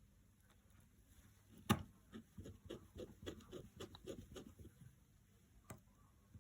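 Small clicks and taps of hand tools on an iPhone 7's internal parts during reassembly: one sharp click, a quick run of light ticks at about four a second, then another single click.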